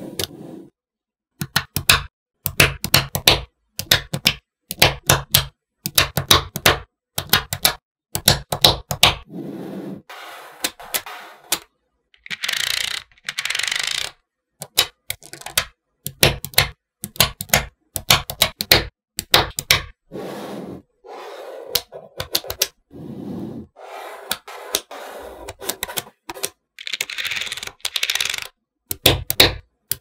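Small magnetic balls clicking and snapping together in quick clusters of sharp clicks, with short silent gaps between them. Twice, about halfway and near the end, there is a longer rattle of many balls rolling and sliding against each other.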